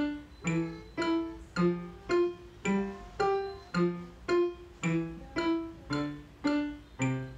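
Digital piano playing a simple piece at a steady pulse of about two notes a second, with a lower note sounding under every other one.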